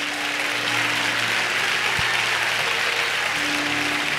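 Church congregation applauding steadily, with a few faint held musical notes underneath.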